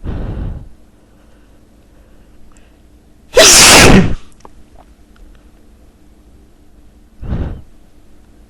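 A man sneezing once, loudly, about three and a half seconds in. There is a shorter, quieter burst right at the start and another near the end.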